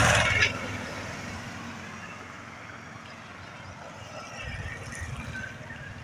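A jeepney driving past close by on a wet road, its engine rumble and tyre hiss loudest right at the start and fading away within the first second, leaving a low steady road background.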